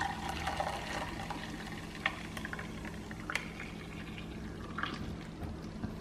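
Hot milk pouring steadily from a saucepan into a glass bowl of custard paste, with a metal spoon stirring and clinking lightly against the glass a few times.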